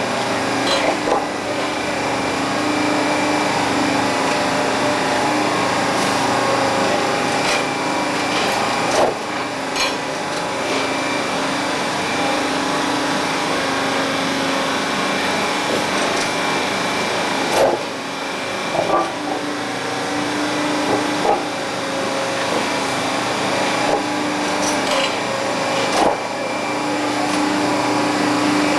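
Railway tie-replacement machine swapping wooden ties for concrete ones, its machinery running in a continuous mechanical din with a hum that comes and goes and a few sharp metallic knocks.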